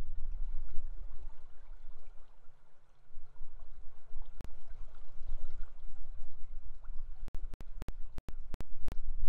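Steady rush of river water with a deep low rumble. From about seven seconds in it is broken by a run of sharp clicks and brief dropouts in the sound.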